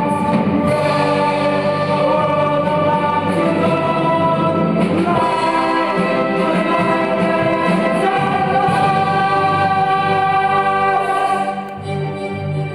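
A stage-musical ensemble of voices singing together with instrumental accompaniment; the sound drops somewhat in loudness near the end.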